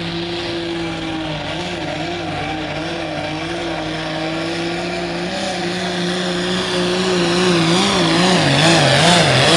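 Diesel engine of a light super stock pulling tractor running flat out under load while pulling a weight-transfer sled. Its engine note wavers rapidly up and down and grows louder over the second half.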